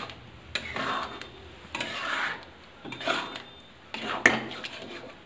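Steel spoon stirring a thick curry gravy in a steel kadai, scraping across the pan in strokes about once a second.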